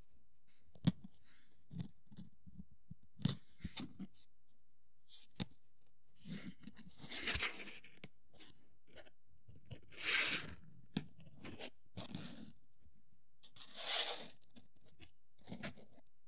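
Plastic miniature kit being worked at a hobby bench: sharp snipping clicks of parts being cut from the sprue and handled, with three longer, half-second scraping rasps.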